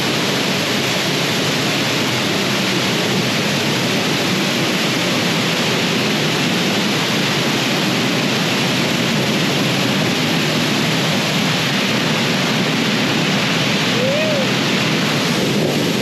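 Steady, loud rush of a tall waterfall pouring into its plunge pool, heard close to the falls.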